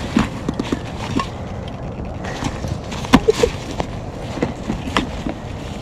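Rustling and scattered clicks from leather-gloved hands working a backpack's straps and buckle, over a low steady rumble.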